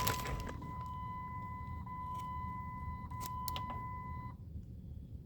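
A steady electronic beep tone from the vehicle's electronics, held for about four seconds before it cuts off suddenly, with a few light clicks along the way.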